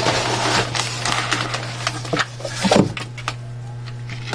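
Cardboard box flap being pulled open and lifted, the stiff cardboard scraping and crackling against newspaper packing, then settling down after about three seconds. A steady low hum runs underneath.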